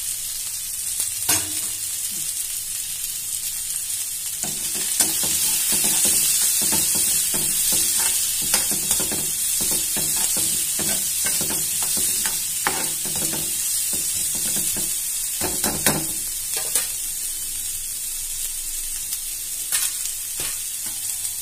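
Chopped onions, garlic and curry leaves sizzling in hot oil in a kadai, a steady hiss. From about four seconds in, a spoon stirs them for some twelve seconds, scraping and knocking against the pan.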